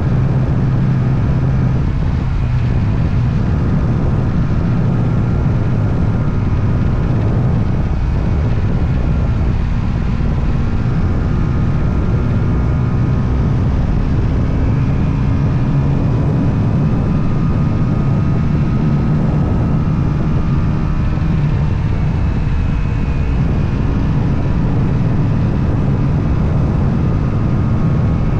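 Motorcycle engine running while the bike is ridden, a steady loud drone whose pitch drifts slowly up and down with the throttle.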